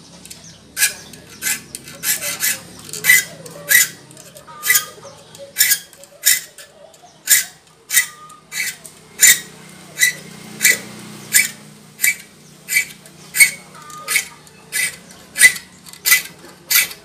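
A hand file rasping across the teeth of a wood-cutting handsaw clamped in a bench vise, sharpening the teeth. Short, sharp strokes repeat steadily, roughly one every two-thirds of a second.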